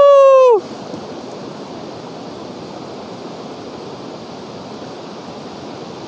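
Mountain river rushing over rocks: a steady, even hiss of running water. A loud, long, high-pitched call from a person's voice cuts off about half a second in.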